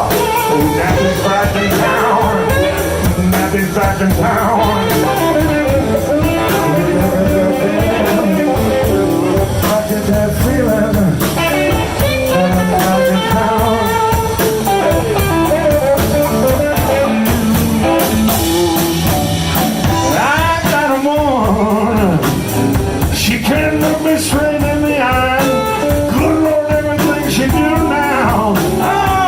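Blues band playing live, with guitar.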